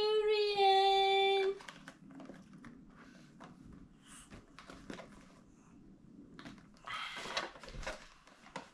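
Light taps and rustles of a baby's hands patting and pawing at a cardboard box on a plastic high-chair tray, with a louder scraping rustle about seven seconds in as the box is handled on the tray.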